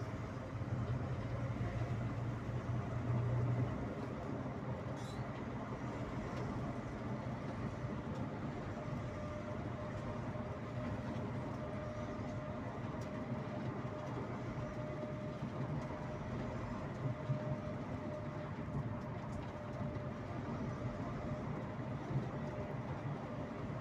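Steady engine drone and road noise of a sleeper coach, heard from inside the cab while it drives. A deeper engine note is stronger at first and eases off about three and a half seconds in.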